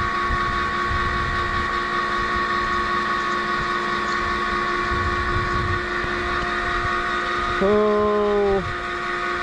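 Center-pivot irrigation tower drive running its worn-out wheel gearbox, a steady whine of several constant tones, as it strains to turn a wheel stuck in a muddy hole; the gearbox is failed and grinding. Near the end a louder, pitched groan sounds for about a second.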